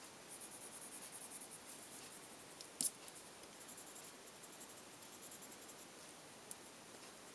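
Faint scratching of a slate blue Prismacolor colored pencil shading on paper in quick short strokes, with a single sharp click about three seconds in.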